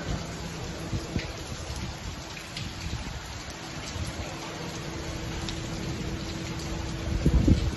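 Heavy rain pouring steadily onto concrete ledges and a paved lane, an even hiss. A low rumbling swell rises near the end.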